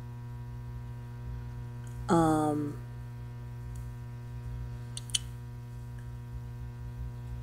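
Steady electrical mains hum. About two seconds in, a short voiced sound falling in pitch breaks through, and around five seconds in there is a small click.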